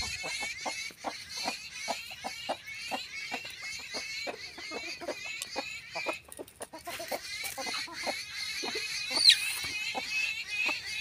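Domestic chickens clucking in short, low calls a few times a second, over a steady high twittering of chirps. About nine seconds in comes one sharp call that slides down in pitch.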